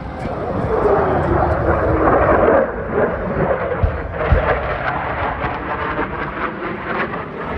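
Jet aircraft flying past: a loud roar with a whine that falls in pitch as it goes by, loudest in the first couple of seconds, then a crackling rumble as it moves away.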